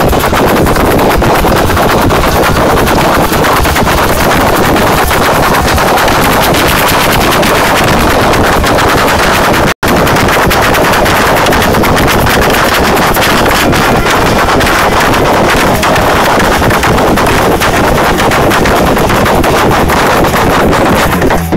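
Samba bateria drumming, a dense continuous mass of rapid drum hits recorded on a phone so loud that it comes out distorted and crackling. The sound cuts out for an instant about ten seconds in.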